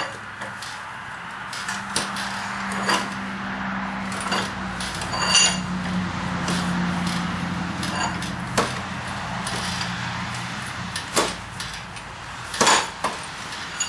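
Blacksmith's leg vise being screwed by hand, its stiff screw threads, freshly de-rusted by electrolysis, grinding steadily. The sliding handle clanks sharply against the vise about every one to three seconds.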